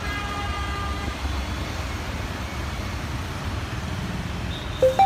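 Street traffic ambience, a steady low rumble of vehicles, with a vehicle horn held for about a second at the start. A few plucked music notes come in right at the end.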